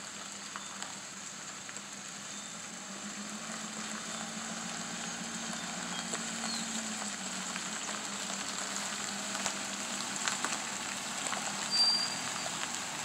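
Ford F-550 rollback tow truck's engine running at low speed as the loaded truck creeps up a gravel driveway, tyres crunching on the gravel. A low engine hum rises a little in pitch around the middle, and the whole sound grows gradually louder as the truck draws near.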